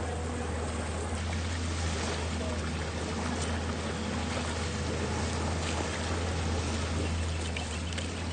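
River water running and splashing, with a steady low hum underneath.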